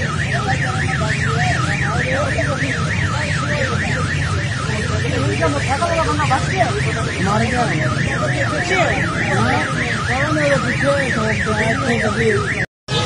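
An electronic siren warbling fast, rising and falling about three times a second without a break, over a low rumble of street noise. The sound cuts out for a moment near the end.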